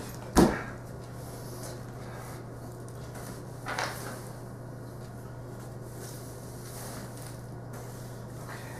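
Crutch knocking on a hardwood floor: one loud, sharp knock about half a second in and a fainter knock near four seconds, over a steady low hum.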